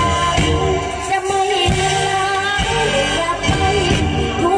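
Live Thai luk thung stage music: a woman sings a wavering, ornamented melody over a full band with bass.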